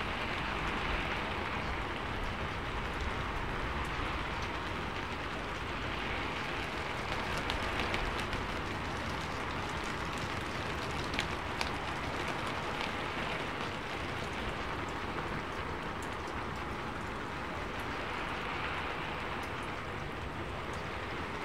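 Steady rain: an even hiss of rainfall with scattered drop ticks and slow, gentle swells, the masking bed laid over quiet subliminal affirmations.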